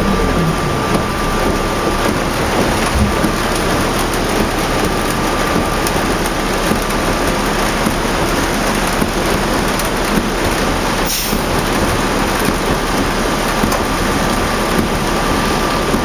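Heavy rain and wet-road noise heard inside a 2004 New Flyer D40LF transit bus on the move, blended with the running of its Cummins ISL diesel. A thin, steady whine sits over the noise throughout.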